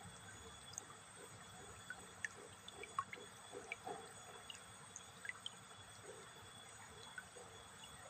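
Faint nature ambience: scattered soft drip-like clicks over a low steady hiss, most of them bunched between about two and four seconds in.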